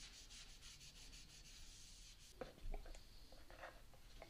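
Faint strokes of a cloth rag rubbing walnut oil into a carved figured-maple clock body, with a few light knocks and handling sounds about two and a half seconds in.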